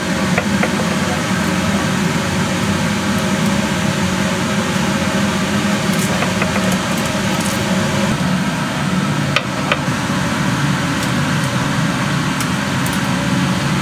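Steady hiss over a low hum, with a few light clicks scattered through.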